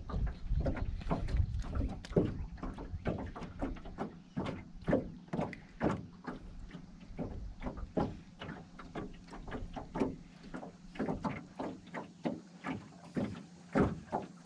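Irregular knocks and slaps on a small flat-bottomed fishing boat, about two or three a second, over a faint steady hum.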